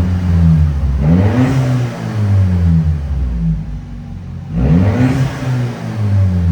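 Audi A5's turbocharged engine being free-revved in repeated blips, its pitch climbing sharply and dropping back to idle each time: once as it starts, again about a second in, and again about four and a half seconds in.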